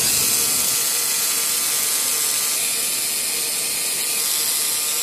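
3Doodler 3D pen's filament-feed motor and gears whirring steadily while it extrudes plastic.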